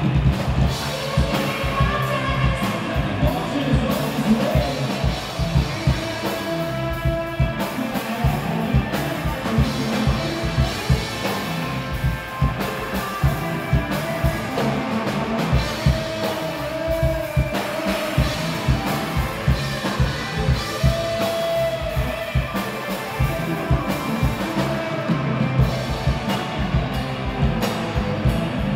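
Rock band playing live: drum kit and guitars with a steady beat.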